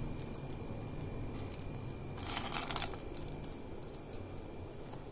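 Fingers picking chopped almond and pistachio slivers off a plate and sprinkling them: soft rustling and small clicks, with a louder scratchy rustle about two seconds in.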